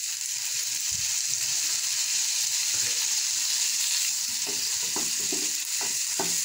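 Diced chicken sizzling in a non-stick frying pan as lemon juice is drizzled in, with a wooden spatula stirring and scraping the pieces. The knocks of the spatula come thicker in the last two seconds.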